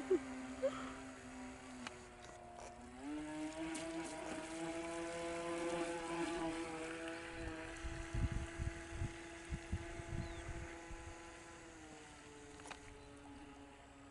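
Radio-controlled model speedboat's motor running with a steady pitched hum, rising in pitch about three seconds in as it speeds up and dropping again near the end as it eases off. A few low thumps come about eight to ten seconds in.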